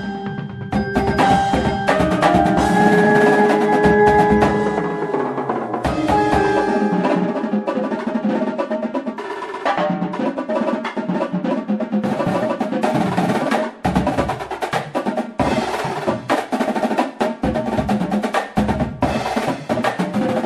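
Background music with drums and a steady beat, opening with sustained melodic notes over the first few seconds.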